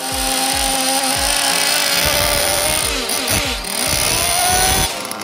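Alpha 5P Plus nitro glow engine, a small two-stroke, running steadily in a stationary 1/8-scale buggy with a high, buzzing whine; its pitch dips briefly about three seconds in, then climbs back.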